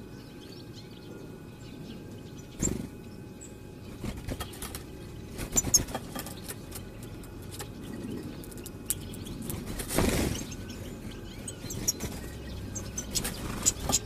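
European goldfinches at a window seed feeder: a few short high chirps with light taps and wing flutters as the birds land and feed, over a low steady rumble.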